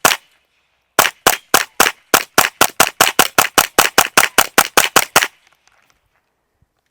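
Semi-automatic pistol firing a rapid string of shots. There is one shot at the start, then after a short pause about twenty shots at roughly four to five a second, which stop a little past five seconds in.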